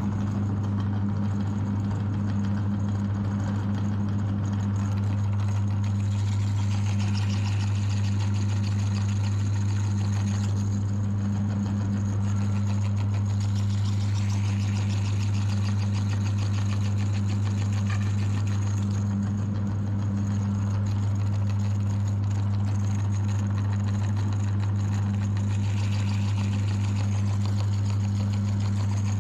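Electric meat grinder running steadily, its motor giving a constant low hum with a second, higher hum above it.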